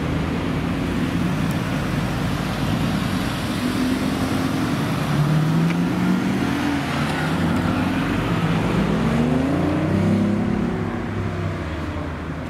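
Sports car engines accelerating hard away from the junction, the revs climbing and dropping back several times as gears change, loudest in the middle and around ten seconds in.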